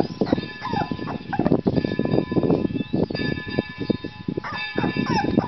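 A young puppy moving about on floor tiles and nosing at a leather slipper: a dense run of small scrapes and taps, with a short falling whine about half a second in and another near the end.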